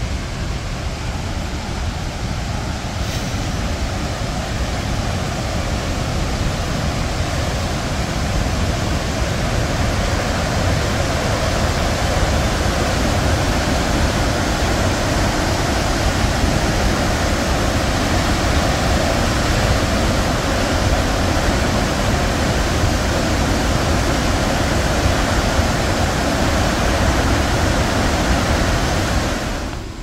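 Roar of Victoria Falls' Main Falls: a steady, dense rush of falling water that grows louder over the first dozen seconds and then holds.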